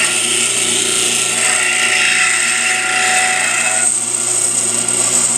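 Pedestal grinder running with a high-speed steel lathe tool bit held against the wheel by hand: a steady high whine under a harsh grinding hiss that thickens from about one and a half seconds in and eases just before four seconds.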